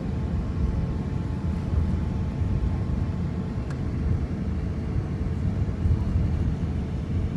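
Steady low rumble inside the cabin of an airliner taxiing after landing, its engines at idle, with a faint steady hum over it.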